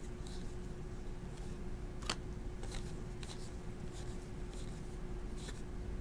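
Faint flicks and slides of glossy baseball trading cards being thumbed through by hand, one card at a time, with a sharper click about two seconds in.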